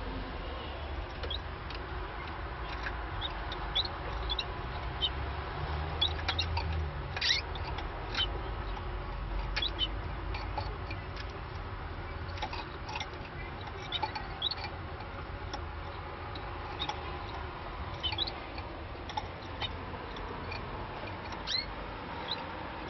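Irish Fancy canaries giving short, high chirps and peeps at irregular intervals over a low steady hum.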